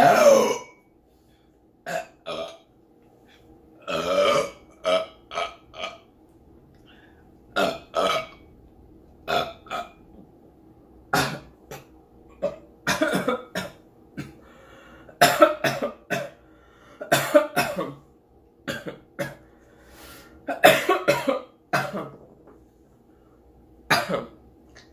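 A long string of loud human burps, about twenty in a row with short gaps, the first long and falling in pitch. Forced burps bringing up gas from carbonated beer, strained enough to come close to retching.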